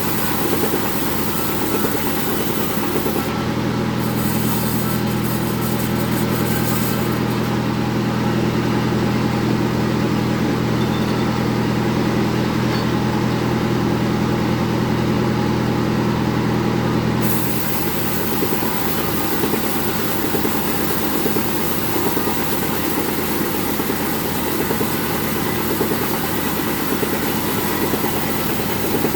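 Sawmill bandsaw running on jengkol wood, a loud, continuous machine noise. From about three seconds in until about seventeen seconds, a steady deeper hum comes in and the hiss fades, then the sound goes back to how it was.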